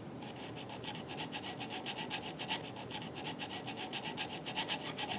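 Metal file being worked back and forth in a T-slot of an Atlas horizontal milling machine's table, filing off raised burrs so a T-nut will slide through. The strokes are rapid and even, a steady rasping scrape.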